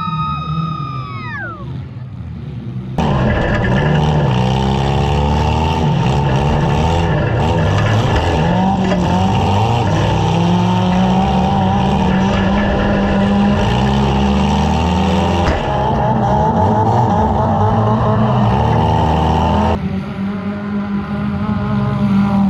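Several compact demolition derby cars' engines revving hard together, their pitches rising and falling over one another, louder from about three seconds in and easing off near the end.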